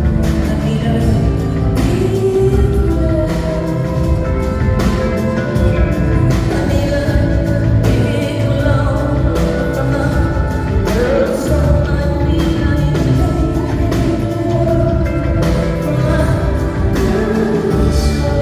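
Live rock band music with a woman singing over a heavy bass line and steady drums.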